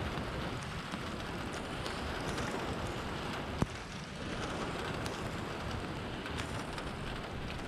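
Steady rain falling, with scattered drops tapping close by and one sharper tap about three and a half seconds in.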